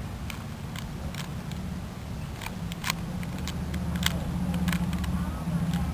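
Irregular sharp plastic clicks of a Rubik's Cube's layers being turned by hand, over a steady low rumble.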